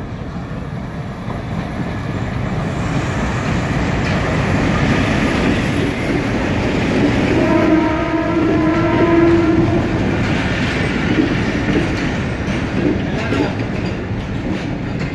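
Pakistan Railways PHA-20 diesel-electric locomotive and its passenger coaches running past at arrival speed, wheels clattering over the rail joints, getting louder as the train comes alongside. A train horn sounds for about three seconds around halfway.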